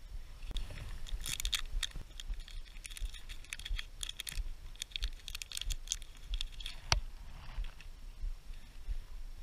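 Crinkling and rustling of a plastic lure packet handled close to the microphone, in quick crackles for several seconds, then a single sharp click near the end.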